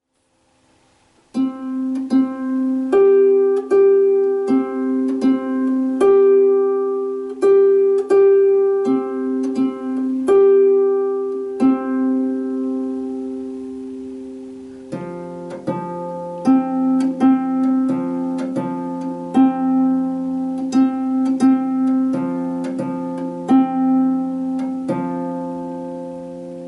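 Lever harp plucked one note at a time, each note ringing on, starting about a second in. It is a beginner's two-note exercise: C's and G's alternating, then from about halfway C's and F's.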